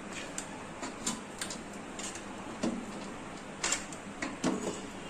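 Metal spatula scraping and knocking against a steel kadhai as thick khoa mixture is scooped out, in irregular scrapes and sharp taps about once a second.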